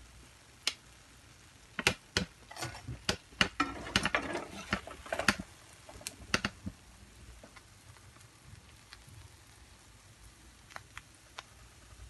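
Metal tongs clicking and tapping against a non-stick frying pan as fried bread slices are pressed to squeeze out the ghee. A quick run of sharp clicks fills the first half, then a few faint ticks near the end.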